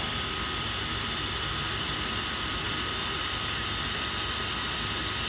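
Steady, even hiss of a running CNC router's vacuum hold-down system, with a faint constant whine.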